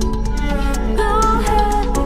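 Background music with a steady beat and a sliding melodic line.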